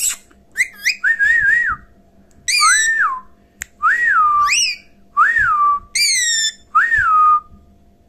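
Indian ringneck parakeet whistling: about five clear whistled notes, the first held with a wobble and the rest each rising and then falling, mixed with short squeaky chirps.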